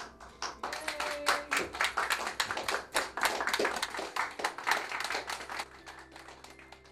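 A small group of people clapping their hands in a room. The clapping starts just after the beginning and thins out and stops near the end.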